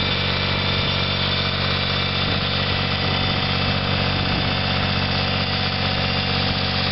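Small tractor engine running steadily at an even speed while it pulls a two-row transplanter.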